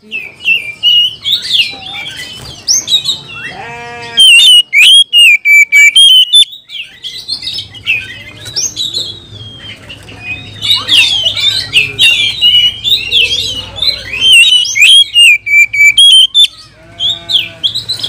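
Oriental magpie-robin singing loud bursts of rapid, varied whistled and scratchy phrases, the excited, aggressive song of a bird worked up against rivals. A short rattling call comes about four seconds in and again near the end.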